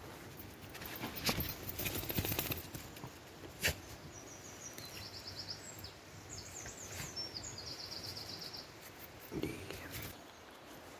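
Rustling with a few sharp knocks, then a songbird singing short runs of quick, high repeated notes in the background.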